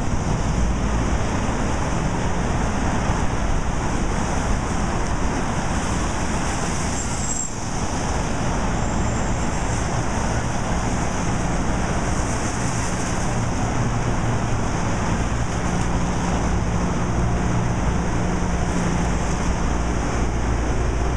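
Steady city street traffic noise, a continuous hiss with a low hum under it.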